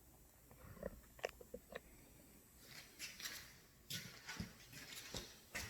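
Faint handling noises: a few small clicks in the first couple of seconds, then scattered rustling and light knocks.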